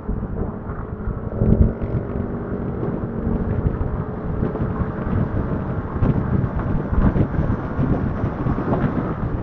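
Motorcycle on the move: the engine running under heavy wind rumble on the microphone, with gusts peaking now and then.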